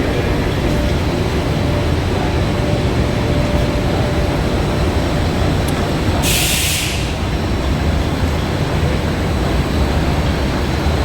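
Film coating and de-metallizing machine running with a loud, steady rumble and hum. About six seconds in there is a single hiss lasting about a second.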